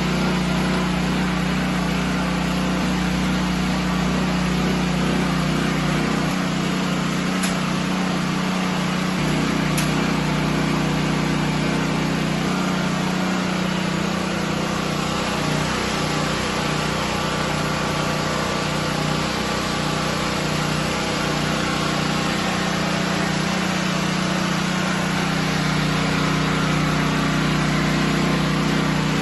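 Small open-frame portable generator engine running steadily on biogas, under a light electrical load.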